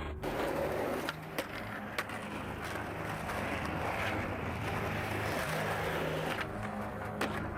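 Skateboard wheels rolling over pavement, with a few sharp clacks of the board, one about a second and a half in, another a moment later and one near the end.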